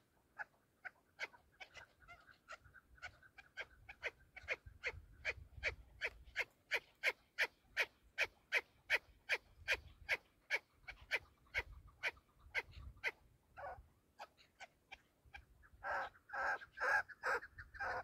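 Chukar partridges calling: a long run of short, sharp notes, about three a second, then a louder, denser burst of calls near the end.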